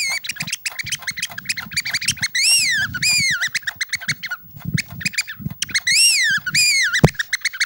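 Imitation bird sounds blown on a small hand-held wooden bird call into a microphone: a fast stream of clicking chatter with repeated whistled calls that each rise and fall. One sharp click comes about seven seconds in.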